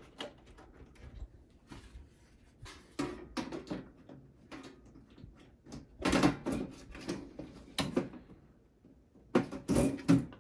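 Sheet-metal side panel of a Dell Inspiron 3847 desktop tower being handled and slid back onto the case: three clusters of clattering knocks and scrapes, with quieter handling noise between them.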